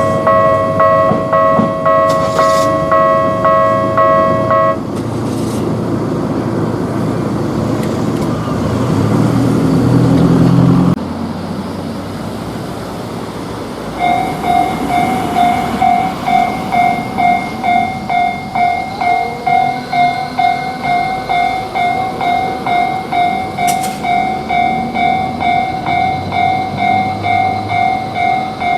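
Japanese level-crossing warning bell ringing in even pulses, stopping about five seconds in as a train runs past, the train's running noise cutting off abruptly about eleven seconds in. A few seconds later another crossing bell starts up, ringing about twice a second.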